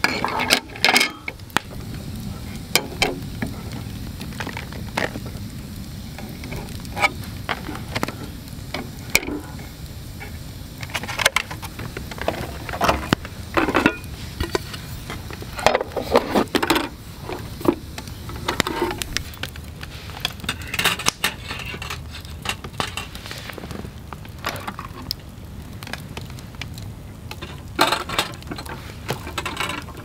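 Aluminium mess tin being handled: a wire rack is set inside and the lid is put on, giving scattered metallic clinks and knocks, more than a dozen, some in quick clusters. A steady low background noise runs underneath.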